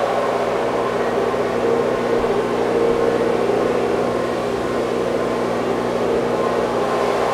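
Shortwave radio static from an RF NOMAD Eurorack shortwave receiver module tuned to no station: a steady hiss, band-pass filtered into the midrange, passed through an echo and a spring reverb, with faint steady tones underneath.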